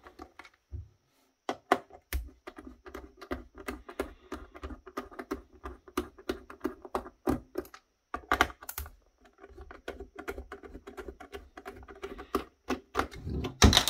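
T8 Torx screwdriver backing coarse-threaded screws out of an Apple AirPort Extreme's plastic base: a quick run of small clicks and creaks, several a second, with a short pause about a second in. A few louder knocks come midway and near the end.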